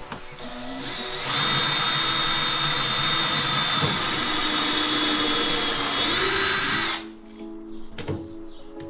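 Cordless Makita drill boring a pilot hole through the fibreglass hull edge to screw on the new plywood transom: a steady high motor whine lasting about six seconds, rising in pitch just before it stops.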